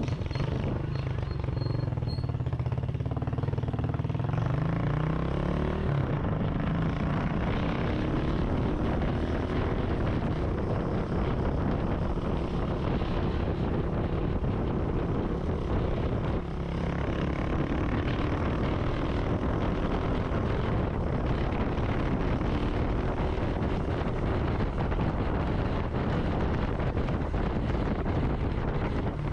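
Motorcycle engine running on the move, its pitch climbing steadily over the first six seconds as it speeds up, then holding a steady drone under wind noise, with a brief dip about halfway through.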